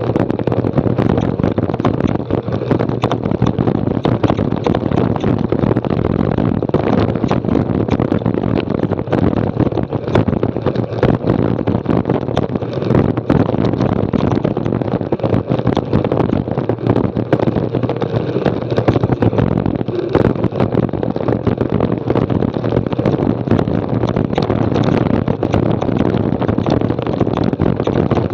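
Mountain bike rolling fast downhill over a loose, rocky dirt trail: tyres crunching on gravel, with constant rattling and knocks from the bike over the stones, and wind buffeting the action camera's microphone.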